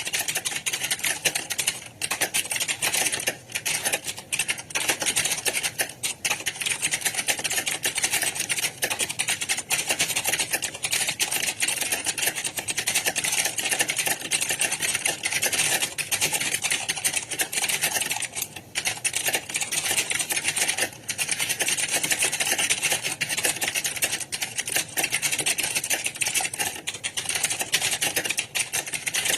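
Dense, continuous clatter of many computer keyboards being typed on at once, the keystrokes overlapping into a steady rattle without pauses.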